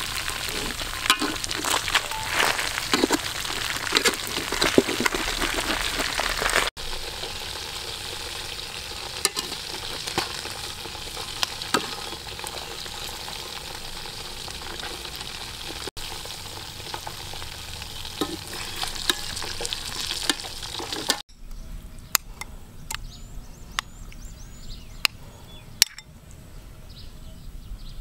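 Stingray pieces deep-frying in hot oil in a metal pan: a dense, steady sizzle with small crackles and pops. Near the end it drops to a quieter stretch with a few sharp clicks.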